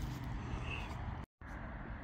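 Steady low outdoor rumble with a hiss over it, broken off for an instant a little over a second in by an edit.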